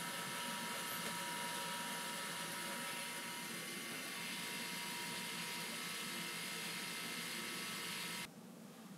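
Electric motor-driven Lego Technic gear train running: a steady mechanical whir with a constant whine. It stops abruptly about eight seconds in.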